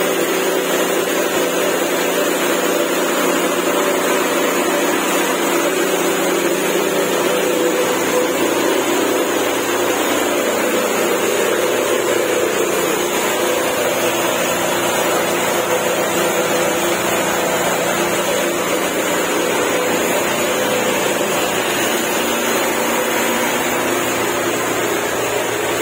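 A machine's motor running with a steady hum.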